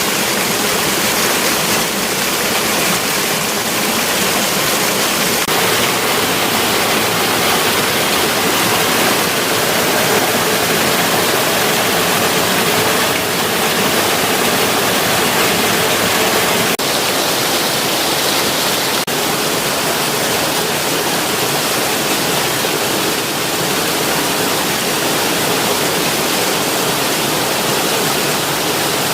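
Steady, loud rush of flowing water, like a stream or waterfall running close by.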